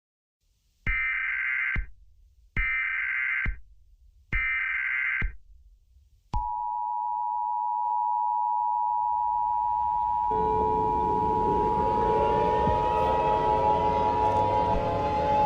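Emergency Alert System header: three short screeching bursts of SAME digital data tones, then the steady two-tone EAS attention signal. From about ten seconds in, a wailing siren rising in pitch joins under the attention tone.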